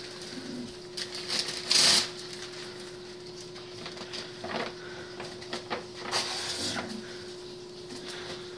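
Room noise: a steady low hum under scattered rustles and clicks, the loudest a short rustle about two seconds in and another around six seconds.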